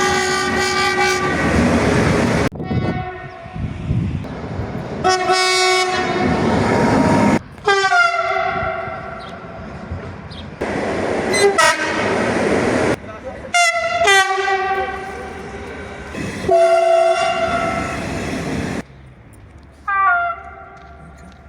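Train air horns sounding a series of blasts, each a chord of two notes held for about a second or more, several dipping in pitch as they start. The rumble of trains rolling past fills the gaps between them.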